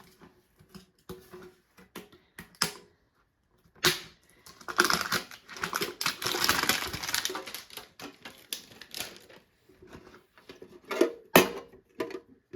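Handling of a metal Pokémon card tin and its packaging: light taps and clicks, then several seconds of crinkling and rustling in the middle, and a sharp click near the end.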